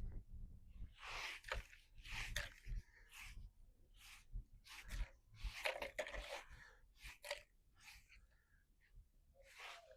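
A hand tool scraping leftover bits of dried mortar off a concrete pool floor, in short irregular rasping strokes.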